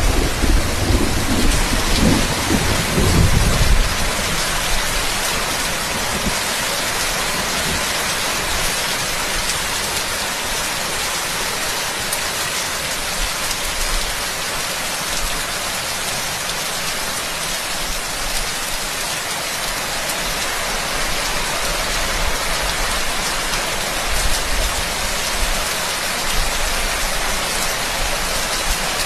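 Steady, dense rain falling, an even hiss. A low rumble of thunder fades out over the first few seconds.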